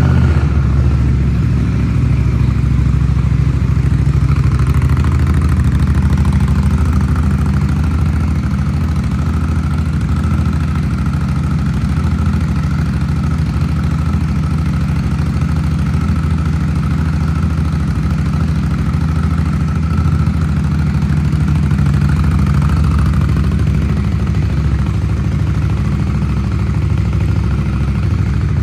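2024 Indian Scout Bobber's V-twin engine idling steadily through aftermarket Shotgun exhaust pipes.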